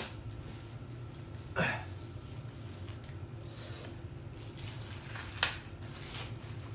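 Sounds of someone eating: a few short clicks and mouth noises, the sharpest click about five and a half seconds in, over a steady low hum.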